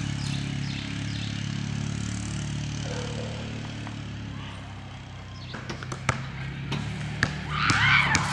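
Small four-wheeler (ATV) engine running steadily at a distance, with a few sharp knocks in the second half and a brief higher-pitched sound near the end.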